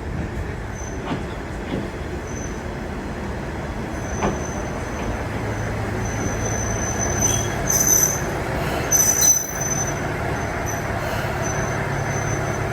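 Train running past with a steady rumble of wheels on rail, and a high-pitched wheel squeal that comes and goes, loudest about eight and nine seconds in.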